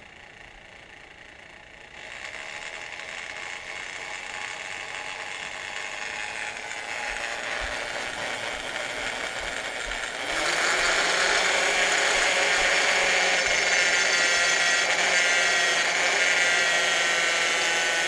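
Hand-held electric drill boring a hole through a metal mounting plate on an outboard motor's bracket. It starts slow about two seconds in, builds gradually, then runs louder and steadily from about ten seconds in.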